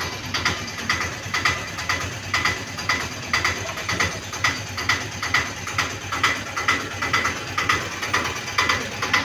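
Steady rhythmic mechanical clicking, about two clicks a second, evenly spaced.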